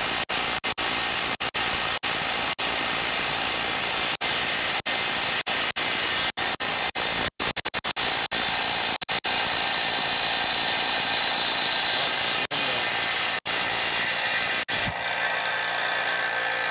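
Milwaukee M18 Stubby half-inch cordless impact wrench hammering without let-up on a 1-1/2-inch (38 mm) nut for about fifteen seconds. It then runs more quietly and steadily as the nut breaks free, near the end.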